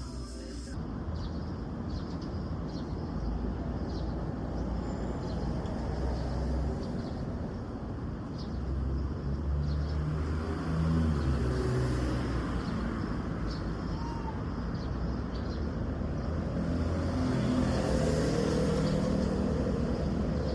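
Ride inside a moving city bus: the diesel engine drones low and shifts pitch as the bus speeds up and slows, over steady road rumble, with occasional faint rattling clicks.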